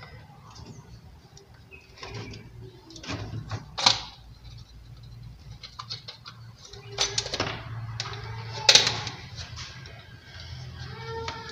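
Screwdriver prying a plastic modular switch plate off its wall box: scraping and plastic clicks, with two loud snaps about four and nine seconds in as the plate works loose.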